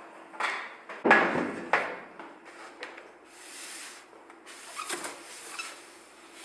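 Metal multi-mould baking tray being handled and set down: three sharp clanks in the first two seconds, then scraping and rubbing noises.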